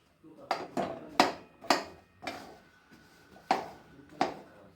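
A spoon scraping and knocking against a kadhai while stirring jaggery as it melts with a little water into syrup. It comes as a series of irregular sharp knocks and scrapes, roughly every half second.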